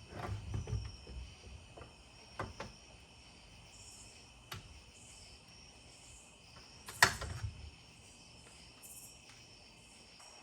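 Scattered knocks and clicks as the trolling motor's shaft is handled and raised in its bow-mount bracket, the loudest a sharp clank about seven seconds in, over a steady chirring of insects.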